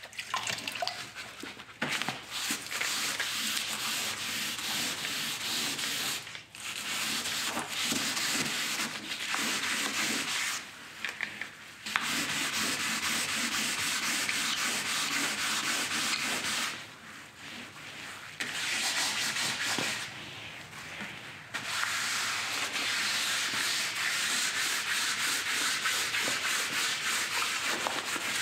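Hand wet sanding of a painted truck fender with 800-grit sandpaper wrapped around a wet Scotch-Brite pad: quick back-and-forth scrubbing strokes, stopping briefly a few times. The sanding cuts through the fresh top coat for a fake patina finish.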